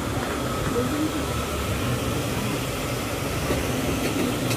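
Steady rumble of nearby street traffic mixed with market hubbub, with a short click near the end.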